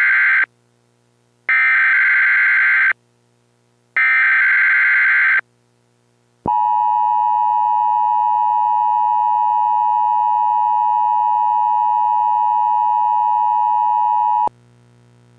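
Emergency Alert System alert tones: three SAME header data bursts of about a second and a half each, a second apart, the first already under way. About a second later the steady two-note EAS attention signal (853 and 960 Hz) sounds for about eight seconds and cuts off abruptly.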